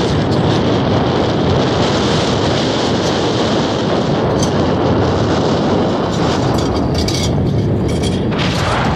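Steady rush of wind buffeting the phone's microphone, mixed with road and engine noise from a moving pickup truck, heard from its open bed.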